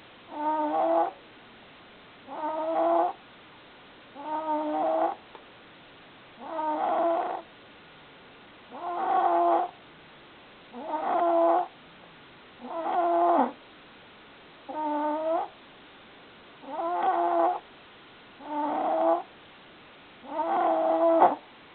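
A sleeper snoring steadily: about eleven drawn-out snores, each about a second long and about two seconds apart. Each snore carries a clear tone that bends in pitch.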